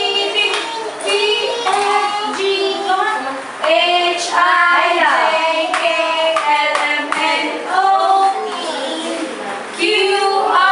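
Young children singing a song together with a woman, with hand claps along the way.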